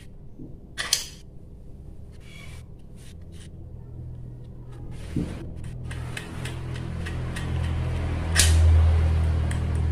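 Light clicks and taps of a plastic carriage plate, spacers and bolts being handled and fitted together by hand, over a low rumble that grows louder and peaks near the end.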